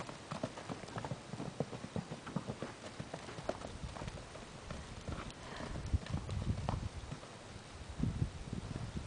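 Hoofbeats of two horses trotting and cantering loose on soft dirt arena footing, a quick, uneven patter of knocks. From about halfway a low rumble rises underneath and grows louder.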